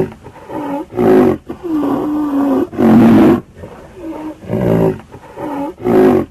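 Rhinoceros calling: a run of loud, deep animal calls, each with a pitch that dips and rises, about five strong ones with softer calls in between.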